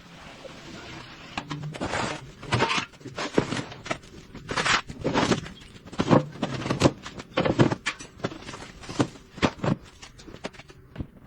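Irregular knocks, clanks and scrapes of tools and parts being handled during hands-on work on a car.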